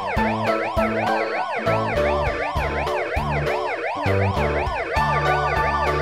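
Ambulance siren rapidly rising and falling in pitch about twice a second, playing over background music with a steady bass line.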